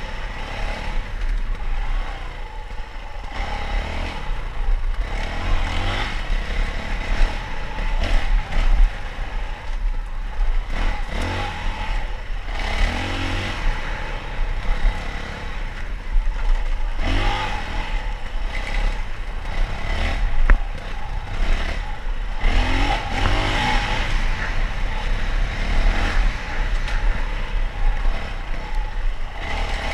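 Dirt bike engine running under load as it is ridden, its revs rising and falling again and again as the rider opens and closes the throttle.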